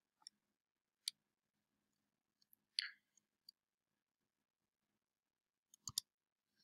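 Near silence broken by a handful of faint, sharp computer clicks as the lecture slides are changed, with a quick double click near the end.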